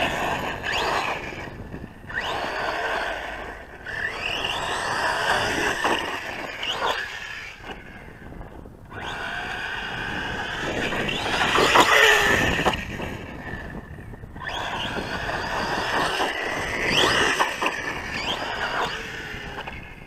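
Losi Lasernut U4 radio-controlled truck's brushless electric motor and drivetrain whining in repeated throttle bursts, the pitch rising as it accelerates and dropping away between bursts. There are about five bursts, the loudest about twelve seconds in.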